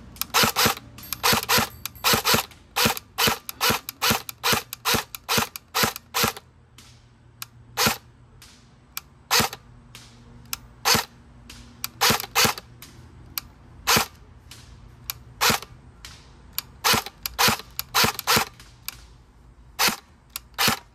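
Electric airsoft SCAR-L rifle firing single shots on semi-auto, each trigger pull a sharp snap of the gearbox cycling. The shots come quickly for about the first six seconds, then slow to roughly one a second.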